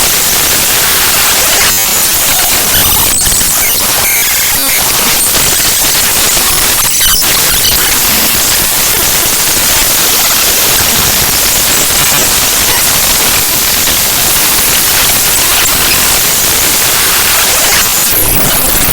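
Raw binary data of the ffmpeg.exe program file played back as audio: a loud, dense static hiss, with brief changes in texture at a few points, including one near the end.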